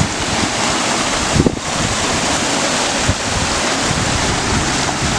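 Water from a garden waterfall spilling over stacked stone boulders, a steady rushing splash, with wind buffeting the microphone.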